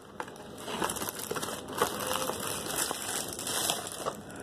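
Cardboard box and packaging being handled and pried at, with irregular crinkling, scraping and small clicks as someone tries to get it open.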